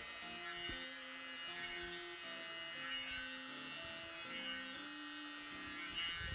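Small electric air blower running with a steady high whine as it blows wet acrylic paint outward across a tile, with soft background music underneath.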